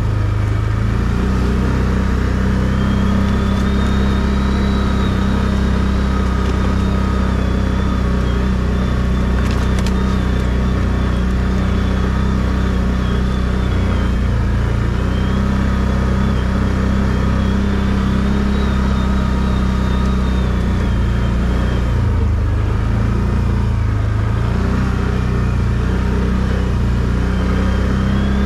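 ATV engine running steadily under way, with a high whine that slowly rises and falls several times as the speed changes.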